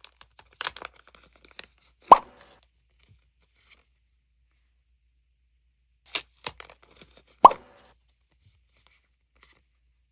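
Packaging of merchandise packs being torn and rustled open in short bursts. There are two loud, short pops with a quick falling pitch, about two seconds in and again about seven and a half seconds in.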